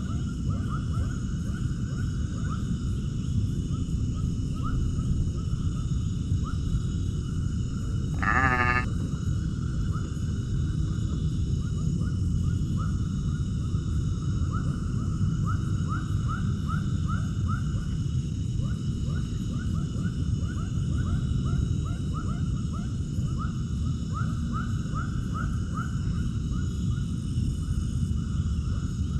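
A farm animal bleats once, a short wavering call about eight seconds in, the loudest moment. Underneath runs a steady low rumble and a constant stream of short high chirps.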